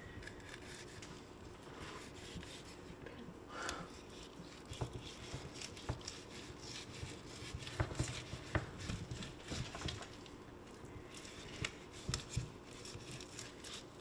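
Fillet knife separating a peacock bass fillet from its skin on a wooden cutting board: faint scraping and tearing, with scattered light clicks and taps.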